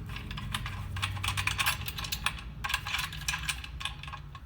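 Rapid, irregular small metallic clicks and ticks of hand tools and screw hardware as a pump's socket head cap screws are worked loose, over a steady low hum.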